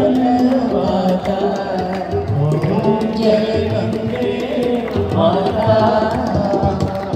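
Devotional aarti hymn: singing with musical accompaniment and steady hand-drum percussion.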